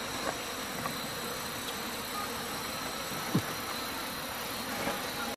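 Log campfire burning with a steady hiss and a few sharp crackling pops, the loudest a little past three seconds in.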